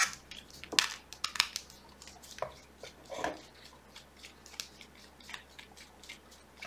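Small Torx T9 screwdriver turning a housing screw out of a SIKA P40.2 pneumatic test pump's body, along with handling of the pump: faint, irregular small clicks and scrapes.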